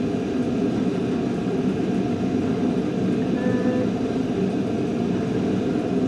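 Steady, fairly loud low rumble of background noise in a noisy classroom, with a faint brief pitched sound about halfway through.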